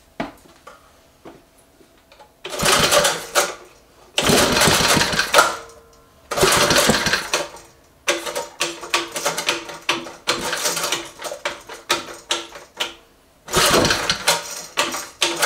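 Briggs and Stratton edger engine, run on propane with no carburetor, being pull-started: several long pulls on the recoil starter, then about five seconds of irregular sputtering pops as it tries to fire but does not catch. It is trying to start, but the owner puts its failure down to there being no carburetor to mix air with the propane.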